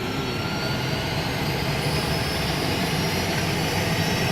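Helicopter running with its turbine and rotor going, a high whine slowly rising in pitch over a steady low churn, growing slightly louder.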